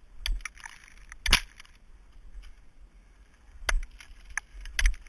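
Ice tools and crampons striking brittle waterfall ice as a climber moves up: about six sharp, irregular strikes, the loudest about a second in, some followed by a brief spray of breaking ice.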